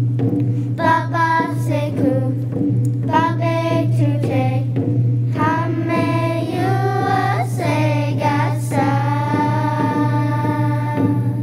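Children singing a slow song over a steady low accompaniment. The sung phrases start about a second in and end in one long held note.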